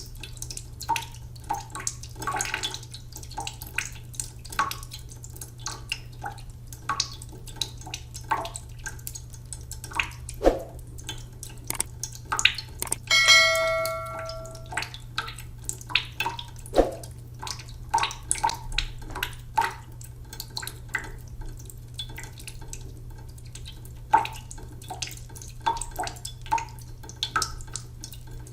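Water falling in separate drops, dripping and plinking irregularly over a steady low hum. About halfway through comes a single bell-like ring that lasts about a second and a half.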